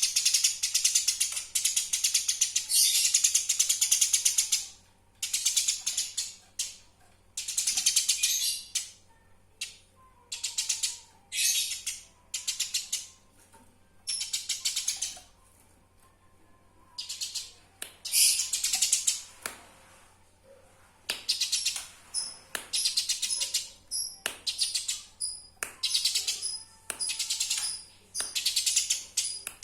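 Eurasian tree sparrow giving rapid, harsh chattering calls in repeated bursts of one to four seconds with short pauses between them. This is the agitated fighting chatter of the sparrow.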